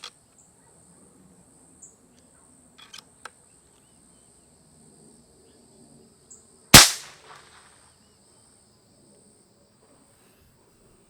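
A single shot from an unmoderated Beeman QB Chief .22 PCP air rifle, about seven seconds in: a sharp snap with a short ringing tail. A few faint clicks come before it.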